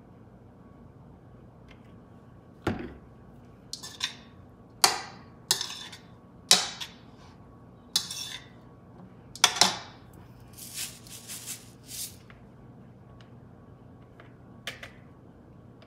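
A utensil clinking and knocking against a bowl about eight times as steamed broccoli is tossed, followed by a few short scratchy rattles.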